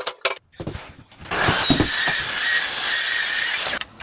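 Some clicking and rattling, then a small electric motor runs steadily at full speed for about two and a half seconds and stops abruptly.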